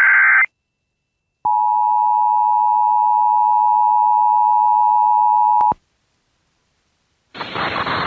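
The Emergency Alert System's SAME header data burst ends with a buzzing squawk about half a second in. After a short pause, the two-tone EAS attention signal (853 and 960 Hz together) sounds steadily for about four seconds and cuts off. After more silence, a loud, harsh hiss of noise comes in near the end.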